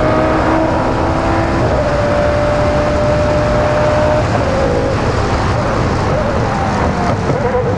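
Single-seater racing car engine running at high, fairly steady revs, its pitch holding for a couple of seconds and then shifting, over a heavy low rumble.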